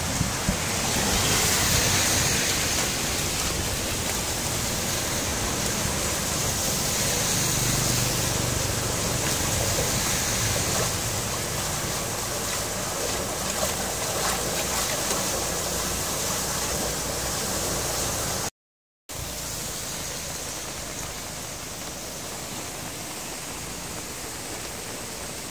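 Muddy rainwater rushing and gurgling into a roadside culvert grate as the clogging debris is pulled clear, over steady rain. The sound cuts out briefly about three-quarters of the way through, then continues as a quieter, even wash of rain and runoff.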